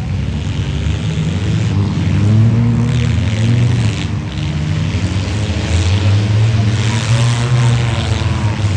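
Compact cars' engines revving during a mini demolition derby, several running at once with the revs rising and falling.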